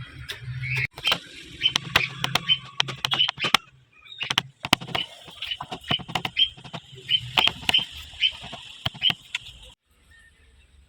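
Wood fire crackling and popping in a chulha as it catches, with irregular sharp cracks, over a steady high chirring; the sound cuts off suddenly near the end.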